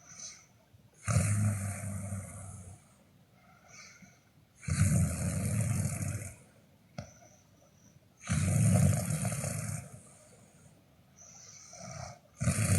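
A sleeper snoring: loud snores about every three and a half seconds, with softer breaths between them. There are three full snores, and a fourth starts near the end.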